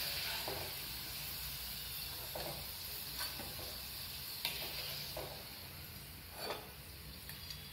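Thin potato sticks deep-frying in hot oil in a wok, a steady sizzle that slowly dies down, the sign that the moisture is cooking out and the chips are nearly done. A perforated steel skimmer clinks against the pan a few times.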